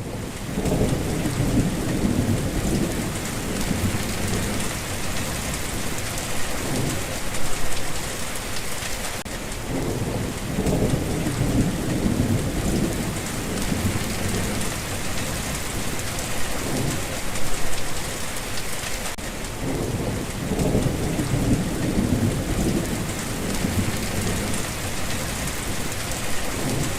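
Steady rain hissing without a break, with low rolling rumbles of thunder swelling up three times, about every ten seconds.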